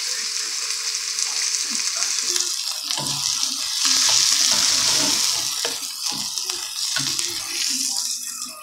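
Diced onion sizzling in hot oil in a pan, growing louder about four seconds in as it is stirred with a spatula, then cutting off at the very end.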